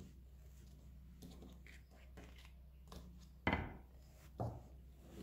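Wooden rolling pin rolling out a round of malawah dough on a table: soft rubbing strokes, with two short knocks of the pin a little past the middle.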